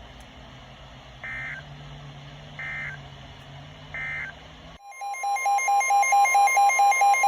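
Emergency Alert System end-of-message code: three short warbling data bursts about a second apart, closing the previous warning. After about five seconds a loud alert tone starts, a steady tone with a rapid pulsing beep over it at about four pulses a second.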